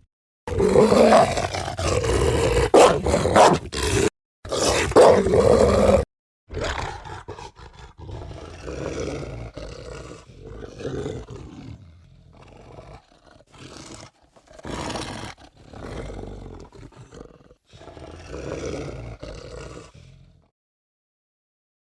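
Film werewolf creature sound effects: two or three loud, rough roars over the first six seconds, then a string of quieter growls and snarls that stops a little before the end.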